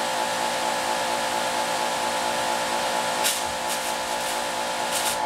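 Bauer 2300 PSI brushless electric pressure washer running steadily while spraying through an oversized 3.5 mm 15-degree nozzle: a constant motor-and-pump hum over the hiss of the water jet, with two brief sharper hisses about three and five seconds in. With this large orifice the pressure falls to about 600 PSI.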